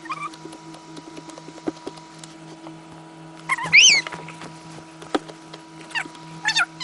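Slime being handled and squeezed, giving scattered small clicks and crackly pops over a steady low hum, with one loud high squeak about halfway through and a couple of shorter squeaks near the end.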